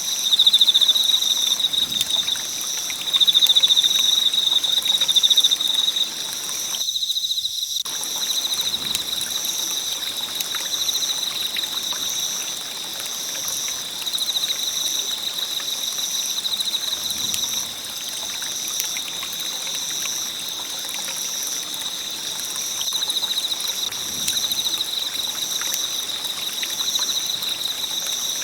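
Wood campfire burning with constant crackling and small pops, over a steady chorus of insects chirping high-pitched in pulses about once a second. The fire sound drops out for about a second roughly a quarter of the way in while the insects carry on.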